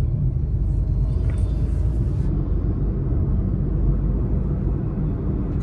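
Steady low rumble of a Suzuki car's engine and road noise heard from inside the cabin while driving.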